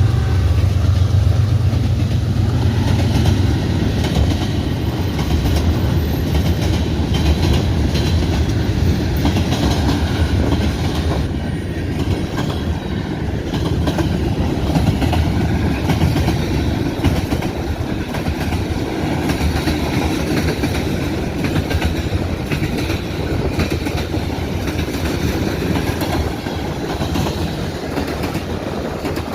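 BNSF manifest freight train's cars rolling past, with a steady rumble and the wheels clickety-clacking over the rail joints. A deep engine drone in the first few seconds dies away as the cars take over.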